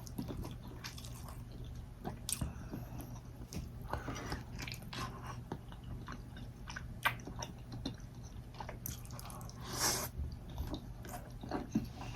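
Close-up mouth sounds of a person chewing food: irregular wet clicks and smacks, with a louder burst just before ten seconds in.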